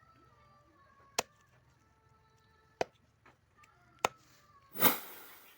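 Three sharp knocks about a second and a half apart, like a knife chopping on a cutting board. Near the end comes a loud burst of hiss that fades away.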